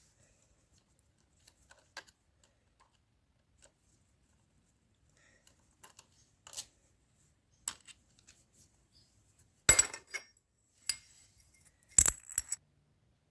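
Small metal tools or parts being handled and set down: scattered light clicks and clinks, with two louder metallic clatters near the end.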